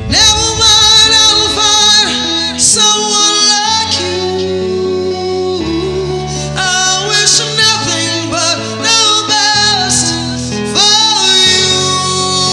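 Band music: a woman sings long held notes that waver and slide in pitch, over a bass line and electric guitar.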